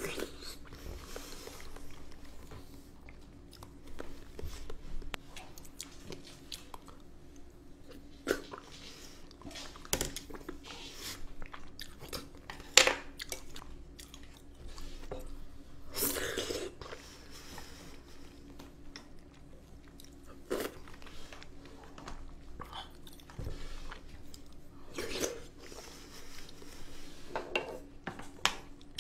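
Close-miked chewing and mouth sounds of someone eating soft food from a spoon, with scattered sharp clicks of the spoon scraping and tapping a plastic container.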